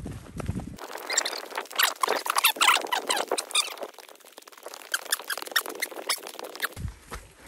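Running footsteps on a dirt forest trail at the start and again near the end. In between, for about six seconds, there is a rapid, irregular run of short high squeaks and chirps with no low thuds under them.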